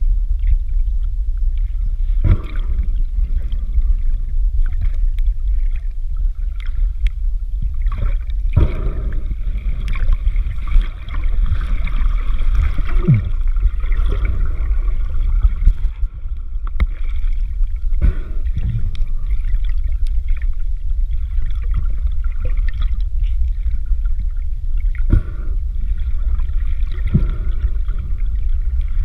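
Muffled underwater sound picked up inside a GoPro Hero4's waterproof housing: a steady low rumble of moving water, with a few sharp knocks and gurgles.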